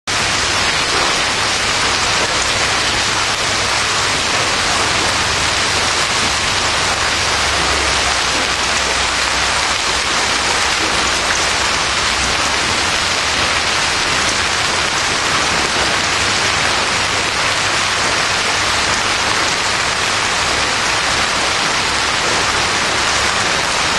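Heavy rain mixed with golf-ball-size hail pelting the pavement and grass, a steady dense hiss with no let-up.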